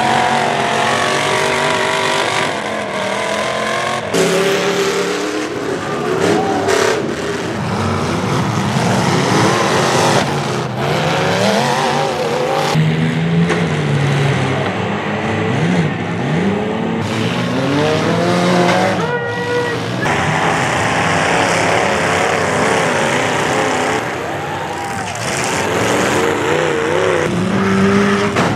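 Demolition derby cars' engines revving hard and rising and falling in pitch, broken by sudden crunching metal collisions between the cars. The sound changes abruptly several times as it jumps between heats.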